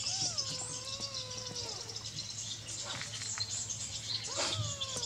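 Kitten meowing: two long, drawn-out meows falling in pitch, the second starting near the end.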